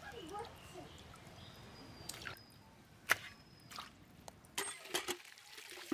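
Water dripping and splashing as raw fish pieces are rinsed by hand in a steel plate of water, with scattered small splashes and one sharp knock about three seconds in.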